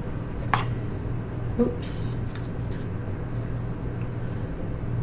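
Steady low hum of room tone, with a sharp click about half a second in and a couple of brief knocks and clicks over the next two seconds.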